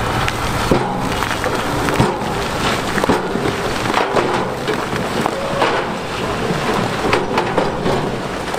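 Big stones sliding out of a tipped dump truck bed, clattering and tumbling over a continuous rumble, with many sharp knocks of rock on rock and on steel.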